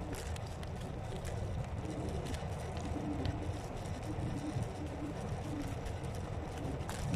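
Electric scooter riding along a forest track: a steady rumble from the tyres and ride, with scattered small clicks and crackles from the path surface.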